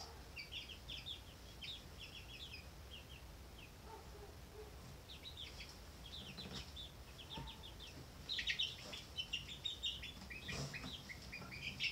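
Four-week-old chicks peeping: many short, high chirps in scattered clusters, busiest near the end.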